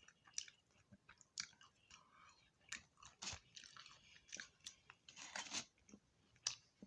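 A person chewing and crunching fried fish and tater tots, in quiet, irregular crunches.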